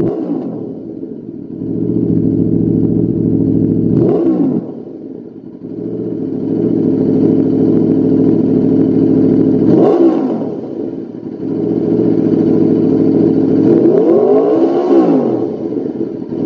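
Aprilia RSV4's 65° V4 engine idling through a Lextek CP8C carbon slip-on silencer. The throttle is blipped quickly about four and ten seconds in, and near the end there is a longer rev that rises and falls back to idle.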